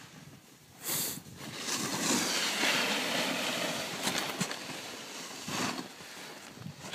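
Snowboards sliding and scraping over groomed snow: a brief scrape about a second in, then a steady hiss that eases near the end.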